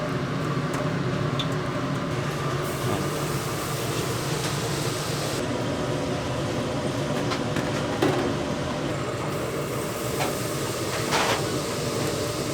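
Steady kitchen background noise: a constant low hum under a broad hiss, with a few short clinks, the clearest about eight and eleven seconds in.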